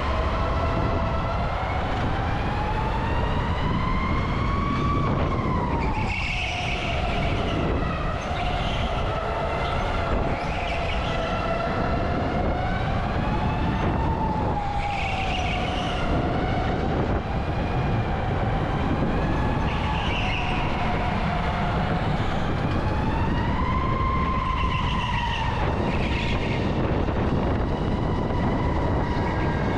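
Electric kart's motor whining, its pitch rising and falling repeatedly as the kart speeds up and slows through the corners, over a steady rumble of wind and road noise on the onboard camera.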